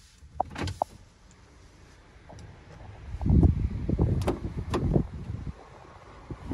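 Handling noise and wind on the phone's microphone as it is carried out of the car: fairly quiet at first, then about three seconds in a low rumble for two or three seconds, with two sharp clicks in it.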